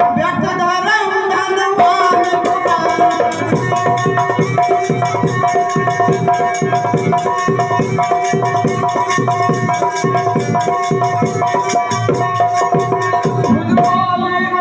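Ramlila stage music: a sung or declaimed line at the start, then from about two seconds in, fast, even hand-drum beats under steady held notes.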